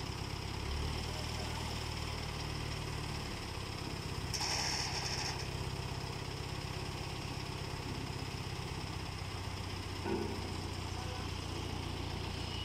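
Diesel engine of an Escorts mobile crane running steadily as a low drone while it holds a steel beam. A brief burst of higher-pitched noise comes about four and a half seconds in, and a short, sharper sound about ten seconds in.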